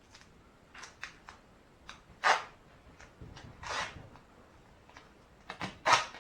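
Strips of tape pulled off the roll and torn, with small clicks and rustles from handling the cardboard Pringles cans being taped together. Three louder ripping rasps come about two, three and a half, and six seconds in.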